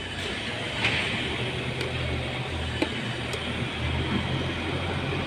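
A steady low hum, like an engine or machine running, with a few light clicks and taps as parts are handled.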